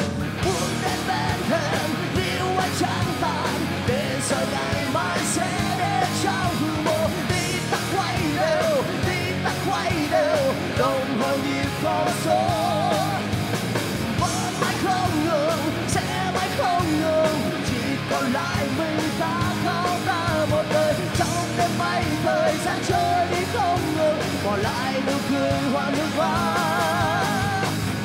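Live rock music from a full band playing loud and steady, with drums and cymbals, electric guitars, and a wavering lead line with wide vibrato.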